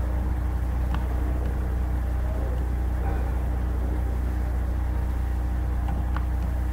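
Steady low electrical hum with a buzz of evenly spaced overtones, carried in the recording. Two faint clicks sound, about a second in and again near the end.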